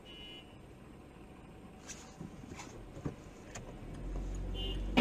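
A motor vehicle's low rumble that grows louder near the end, with several sharp clicks and two short high beeps.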